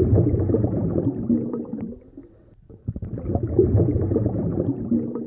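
Gurgling, bubbling rush of air bubbles in water, in two long spells with a short lull about two seconds in.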